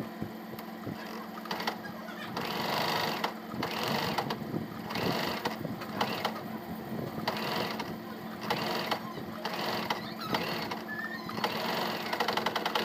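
Small electric domestic sewing machine stitching a seam through fabric in short runs of about a second, stopping and starting several times, the needle's fast even clatter over a steady hum.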